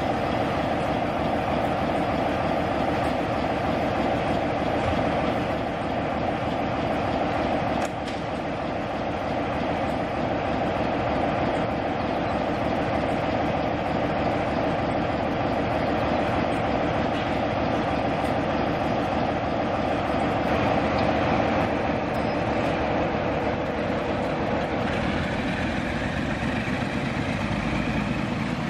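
Heavy diesel locomotives idling with a steady engine drone. About 25 seconds in, a rising whine comes in as the Class 47's twin-bank Sulzer diesel opens up to move off.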